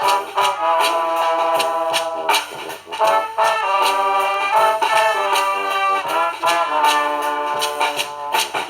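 Brass band music: horns hold and move through chords and melody lines over a steady beat of sharp percussion strikes, with a brief drop in the horns about three seconds in.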